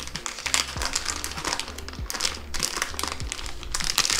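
Clear plastic packaging bag crinkling as a silicone phone case is handled and pulled out of it, a run of irregular crackles throughout.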